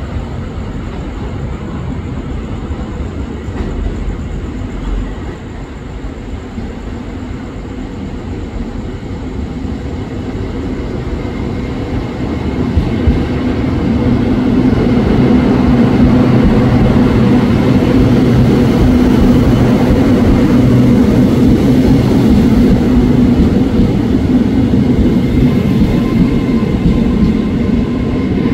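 Hitachi-built SRT Red Line electric commuter train running empty through a station without stopping: a steady rumble that grows louder about halfway through as the train draws alongside the platform, with a low steady hum under it.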